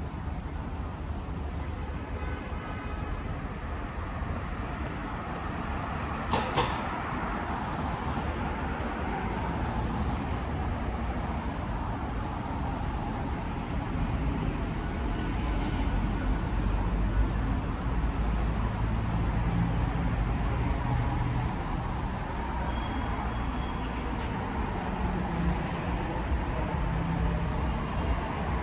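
Road traffic on a multi-lane city street: a steady rumble of passing cars and engines, growing louder in the second half, with one sharp click about six seconds in.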